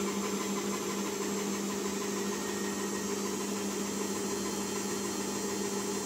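Samsung front-loading washing machine running with a steady, even hum.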